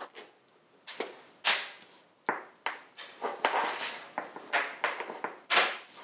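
Small steel parts clicking and knocking as a handlebar lever assembly is dismantled by hand: the clamp comes off, and its bolts and a washer are set down on the workbench. Irregular sharp knocks, the loudest about one and a half seconds in.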